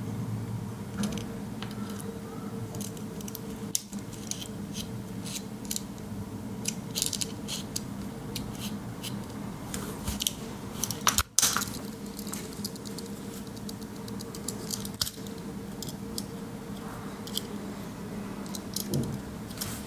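Small clicks and taps from a Swiss Army pocket knife being handled, its tools and pin worked in and out, with a sharper knock just after the middle. A steady low hum runs underneath.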